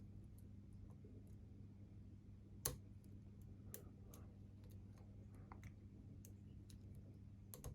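Faint clicks and ticks of a lock pick working the pins of a Master Lock Magnum padlock's four-pin core, with one sharper click a little under three seconds in and another pair near the end, over a low steady hum.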